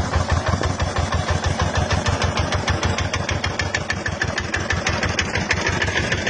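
Engine of an overloaded small farm truck running with a rapid, even pulsing beat as it pulls its load over a rough dirt track.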